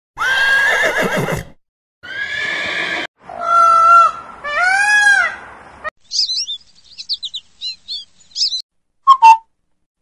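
Horses neighing, four whinnies one after another, followed by a house sparrow's quick high chirps. Near the end a bird gives two short, loud calls.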